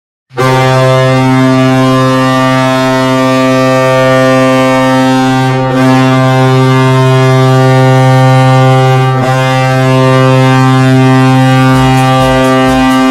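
HC Sibir Novosibirsk's ice hockey goal horn sounding one long, low, steady blast for about thirteen seconds, wavering slightly twice along the way.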